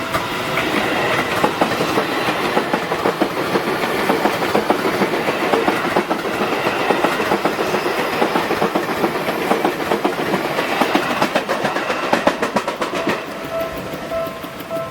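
Seibu Shinjuku Line electric train passing close by over the level crossing, its wheels clattering rapidly over the rail joints and points. The crossing's warning bell rings at the very start and comes back near the end as the train noise dies away.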